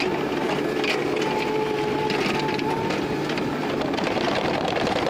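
Excavator's diesel engine running steadily with a clattering rumble, and a whine that rises in for a second or two and drops away twice.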